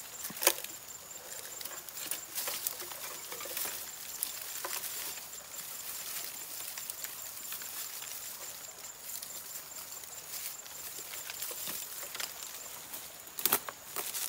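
Dry grass and dead leaves rustling and crackling as they are grabbed and pulled up by hand to gather tinder, with many small crackles and a louder sharp snap about half a second in and another near the end.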